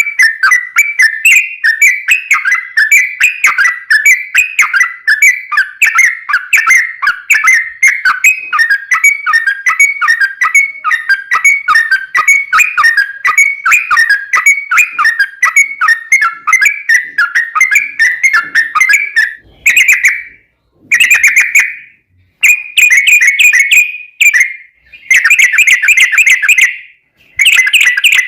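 Yellow-vented bulbul (trucukan) singing a long, rapid, rolling run of bubbly whistled notes, with no break for most of the stretch. Near the end it switches to several short bursts, each one broken off abruptly by silence.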